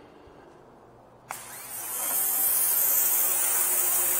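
A small pressure washer's wand starts spraying with a click about a second in. A steady hiss follows as the narrow water jet blasts the concrete, building for about half a second before holding.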